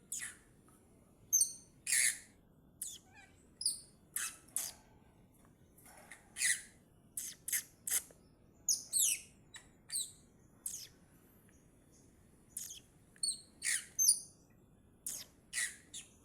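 Young chestnut-tailed starling (jalak rio-rio) calling: a string of short, harsh calls mixed with brief whistled notes that glide quickly in pitch, spaced irregularly.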